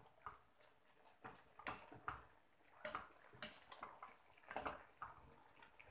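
Wooden spatula stirring chicken and vegetables in a cooking pot: faint, irregular scrapes and clacks, about a dozen spread through.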